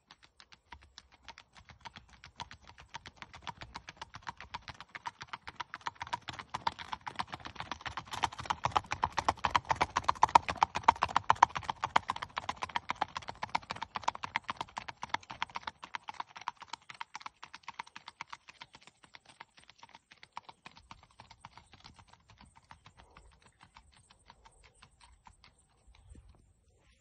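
Horse's hoofbeats on a paved road, a quick, even clip-clop that grows louder as the horse comes closer, is loudest about ten seconds in, and then fades as it moves away.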